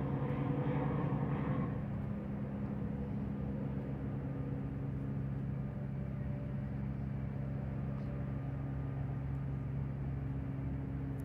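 Steady low machine hum with several held low tones, a little louder and busier for the first two seconds, like idling rail equipment.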